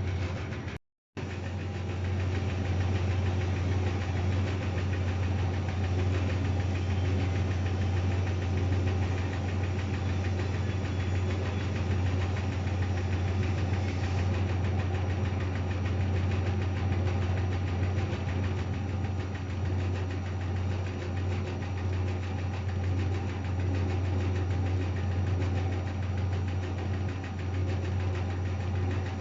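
Privileg 810 SE washing machine running with a steady low hum and drone, broken by a brief total gap about a second in.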